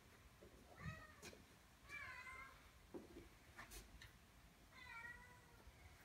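Kitten meowing faintly: three short, high meows, about a second in, about two seconds in, and about five seconds in.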